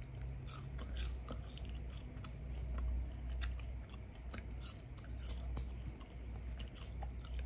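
A person chewing a mouthful of small fish-shaped latiao, spicy gluten sticks, with irregular small clicks and crackles of the mouth and food, over a steady low hum.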